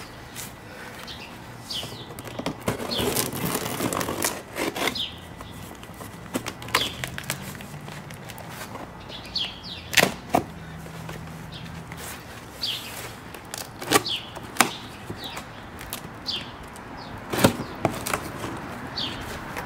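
A cardboard shipping box being cut open and unpacked: rustling and scraping of cardboard and packing, with a few sharp cracks as the tape and flaps give way.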